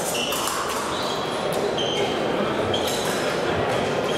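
Fencing-hall ambience with a steady din of a large room, many short clicks, and several brief high squeaks that come and go, from fencers stepping back and forth on the piste.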